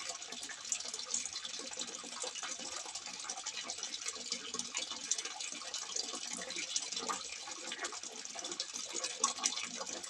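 Water pouring from a simple spout and splashing steadily into water below: a continuous trickling with many small splashes.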